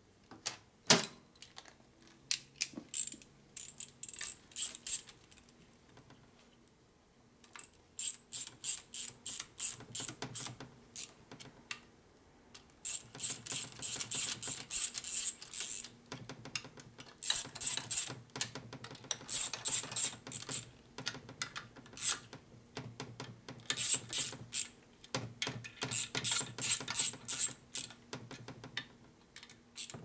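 Hand ratchet wrench clicking in quick runs of rapid clicks with short pauses between, as bolts are run into a shovelhead engine's crankcase.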